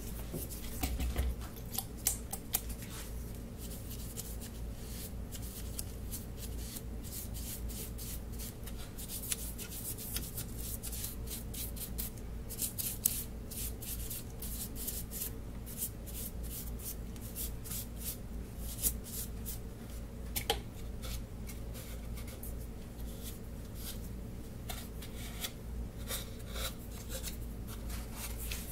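A hand tool rubbing and scraping against plywood in short, irregular strokes, with a few sharper clicks of wooden parts being handled. A steady low hum runs underneath.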